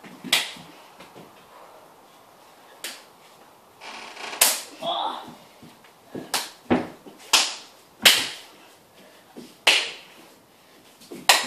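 Sharp slaps and smacks from barefoot children play-fighting on a tiled floor, about nine hits spread unevenly, with a short cry about five seconds in.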